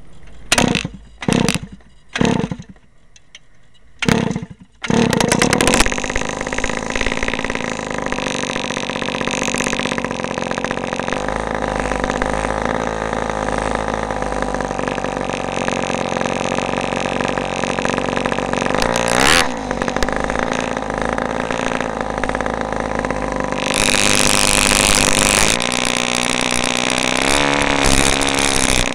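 Small air-cooled engine of an RC dragster cranked in four short bursts before it catches about five seconds in, then running steadily. About twenty seconds in the revs dip and sweep briefly, and from near the end of the run it gets louder and harsher.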